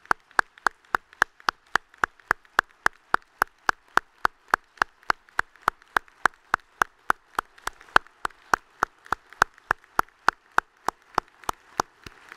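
One person clapping hands close to a microphone: single, evenly spaced claps, roughly three and a half a second, that stop just before the end.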